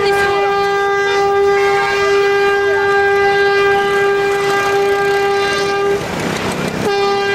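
Electric tram's horn sounding one long steady note for about six seconds, then a second short blast of the same pitch near the end, over street traffic.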